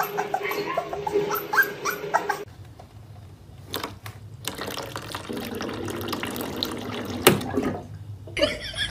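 A puppy's short high whimpers for the first couple of seconds, then water running from a water-dispenser tap as a cat paws at its lever, with a few sharp clicks of the tap.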